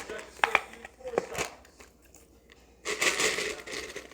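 A puppy drinking, with several sharp clicks and crinkling and crunching noises in the first second and a half, then a denser noisy burst near the end.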